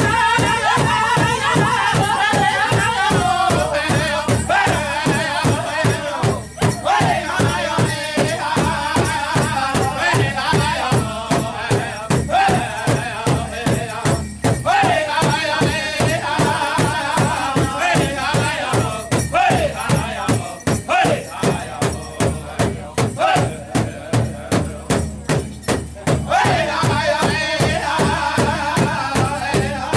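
Powwow drum group: several singers in unison over a steady beat on a large shared drum struck with sticks. The singing falls in pitch over the first few seconds, thins out in the middle while the drumbeat carries on, and comes back strongly near the end.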